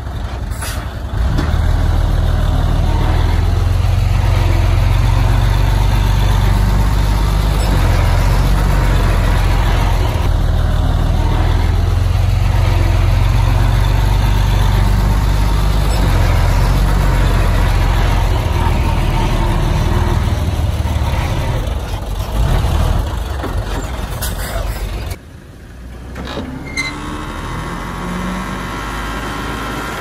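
Diesel engine of heavy earthmoving machinery running steadily with a deep low drone. About 25 seconds in the sound drops abruptly to a quieter engine with some clanking.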